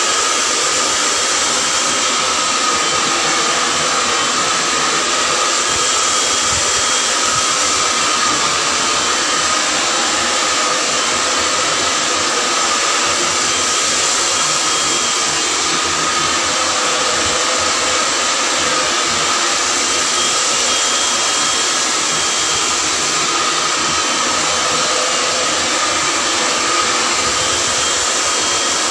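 Handheld hair dryer running steadily while blow-drying long hair: a constant rush of air with a steady high whine.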